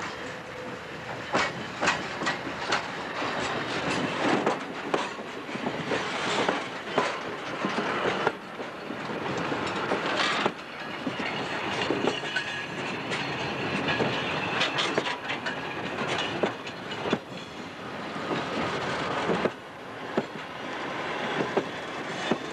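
Goods wagons rolling slowly past close by during shunting: steel wheels knocking over rail joints and points with irregular clanks and bangs, and now and then a thin wheel squeal on the curve.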